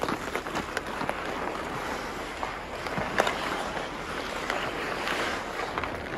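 Ice hockey skates scraping and carving across an outdoor rink, a continuous hiss, with a few sharp clacks of sticks on the puck or ice. The loudest clack comes about three seconds in.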